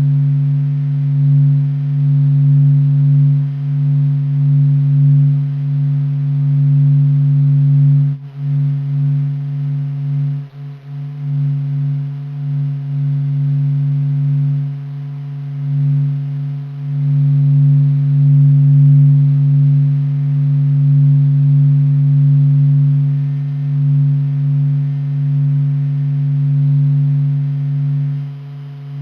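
Sonified sound of the Sun: NASA data of the Sun's vibrations made audible, heard as a deep humming drone of a few steady tones that swells and ebbs slowly. It dips briefly about eight seconds in and again around ten to eleven seconds.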